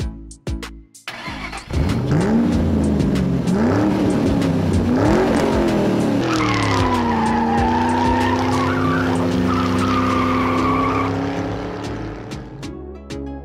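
Dubbed race-car sound effect: a sports car's engine revving up and down several times, then a long tire screech over a steady engine note from about six seconds in, fading out near the end.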